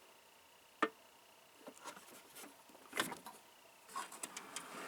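Scattered sharp clicks and clinks of steel hand tools being handled and set down in a toolbox: one about a second in, a louder one about three seconds in, and several small ones near the end.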